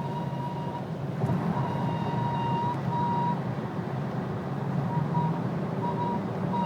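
A 2010 Mercedes-Benz GLK 350 making a high-pitched whine over a low rumble. The whine cuts out and comes back several times. It is the abnormal noise the vehicle is being shown for.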